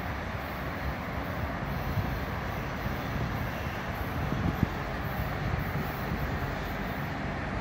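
A distant Brightline passenger train with its diesel-electric locomotive running along the track: a steady low rumble under a constant haze of background noise.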